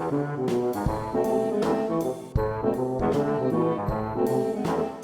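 Brass-led instrumental music, a melody of short held notes over a few sharp drum hits.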